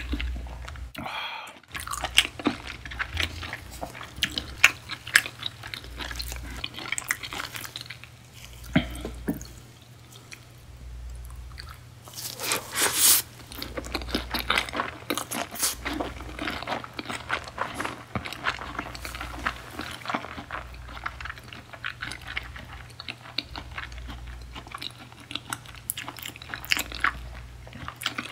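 Close-miked chewing of beef tartare and sea urchin nigiri: soft, wet chews with many small lip and tongue clicks, and one louder stretch of about a second roughly twelve seconds in.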